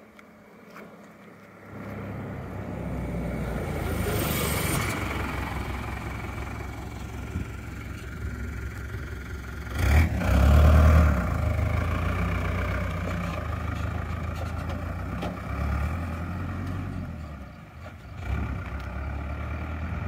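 Small truck's engine and tyres passing close by on a country road, building up about two seconds in, loudest about ten seconds in, then carrying on more quietly as it drives off.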